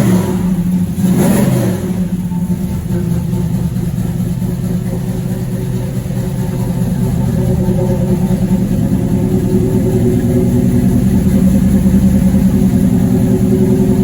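1983 Buick Regal's engine, just fitted with new exhaust, blipped twice near the start and then idling steadily.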